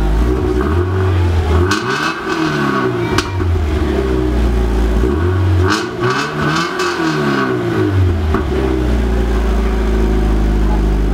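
Subaru BRZ / Scion FR-S 2.0-litre flat-four engine running steadily, then revved up and back down twice, with a few sharp cracks during the revs.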